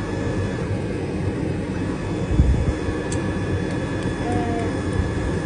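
Steady low rumble of outdoor background noise, with one dull low thump about two and a half seconds in.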